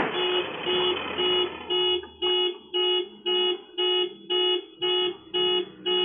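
Car alarm set off by a collision, beeping in one steady pitched tone about twice a second. Under the first beeps, the noise of the crash fades out over about a second and a half.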